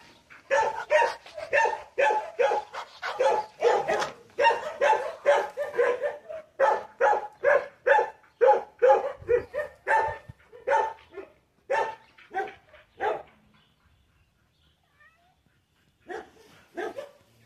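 Dog barking in a rapid run, about two or three barks a second, stopping about thirteen seconds in, then a few more barks near the end.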